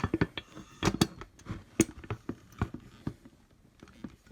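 Light clicks and knocks of screws and metal frame parts being handled and fitted by hand: a handful of sharp taps in the first three seconds, then quieter.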